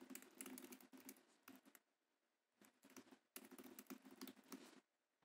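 Faint typing on a computer keyboard: a run of quick keystrokes for about two seconds, a short pause, then a second run of about two seconds.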